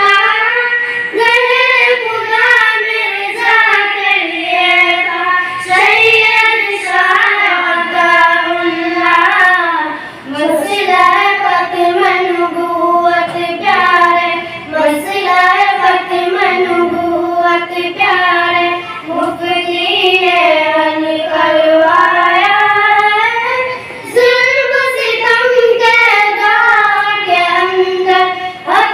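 Young girls singing an Islamic naat into microphones, a melodic vocal line with long held, wavering notes and brief pauses for breath about ten seconds in and again near twenty-four seconds.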